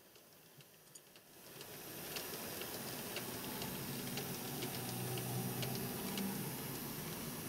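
N gauge model Class 58 locomotive running past with a rake of cement tank wagons: a steady low motor hum and light, irregular clicking of the wheels on the track, fading in about a second and a half in.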